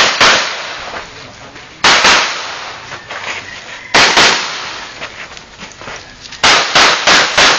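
Pistol shots fired in quick pairs a couple of seconds apart, then four fast shots near the end: a shooter engaging targets on an IPSC Standard-division stage.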